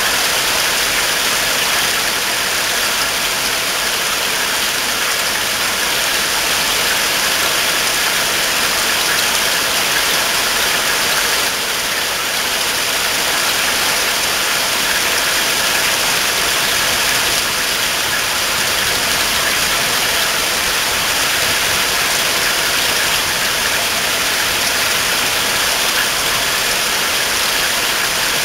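Heavy rain falling steadily, a constant even hiss that does not let up.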